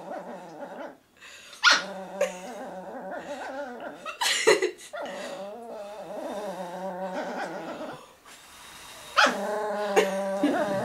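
A small black pet dog growling without letup, with a few sharp, louder outbursts, angered by air being blown in its face. The growling breaks off briefly about eight seconds in, then resumes louder.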